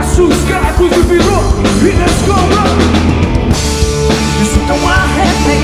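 Rock band playing live: a drum kit drives the beat over steady bass notes, with wavering melodic lines on top.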